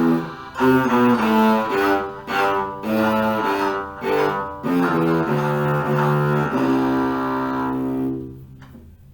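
Solo cello played with the bow: a slow waltz in 3/4 on the low G and C strings, moving note by note. It ends on a longer held note that fades out about eight seconds in.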